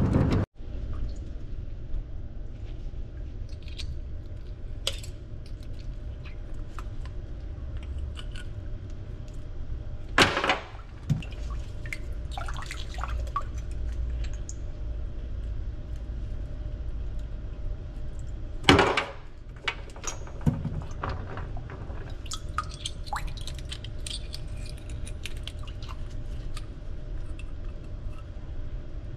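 Small clicks and scrapes of a metal fork and hard conch shells against a stainless steel pot as boiled crown conchs are picked, over a low steady hum, with two louder knocks about ten and nineteen seconds in.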